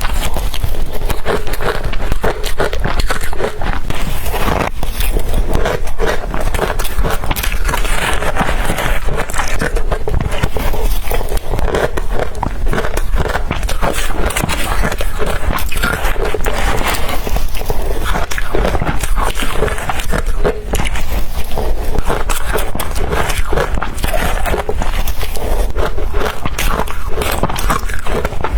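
Crushed blender ice being bitten and crunched, a dense, unbroken run of crunches.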